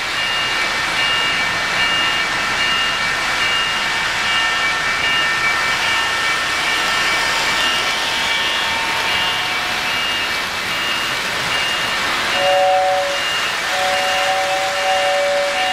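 O-gauge model trains running on three-rail track, with a steady rolling noise. Over it a high beep repeats about twice a second throughout. A two-note train whistle sounds briefly about twelve seconds in, then again held for a couple of seconds near the end.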